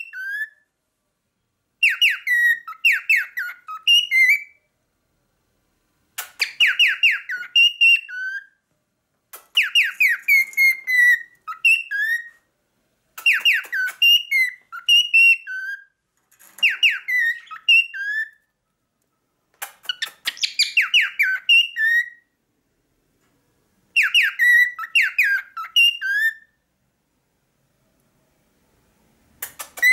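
Male cockatiel singing: a short phrase of quick whistled notes, rising and falling, repeated seven times with a pause of about a second between phrases.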